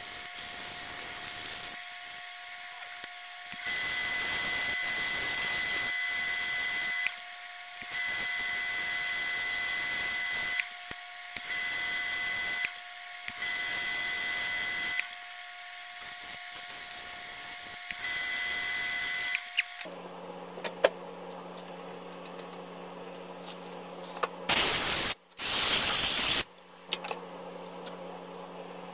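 Wood lathe running with a steady whine while a spinning spindle is hand-sanded, the paper rubbing on the wood in five louder passes of a few seconds each. The lathe's whine stops about two-thirds of the way through, leaving a lower steady hum. Two loud noisy bursts come near the end.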